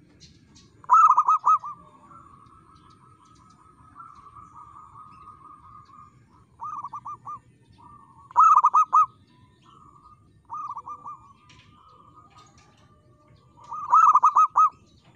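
Zebra dove (perkutut) cooing: five phrases of rapid, pulsing coos, loud ones about a second in, around eight seconds in and near the end, softer ones between, linked by a quieter wavering trill.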